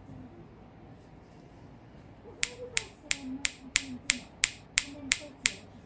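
A quick run of about ten sharp, evenly spaced clicks, about three a second, starting a little over halfway in.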